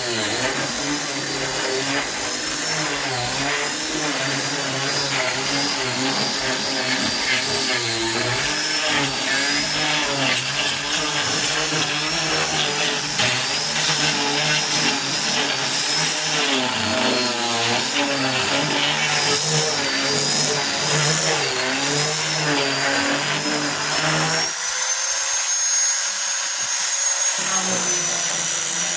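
Electric power tool motor running continuously with a high whine whose pitch wavers up and down as it works the wood under varying load.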